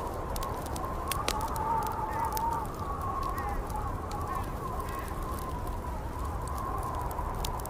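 Wood fire crackling in a fireplace with irregular sharp pops, over a steady low rumble and a wavering whistle of wind.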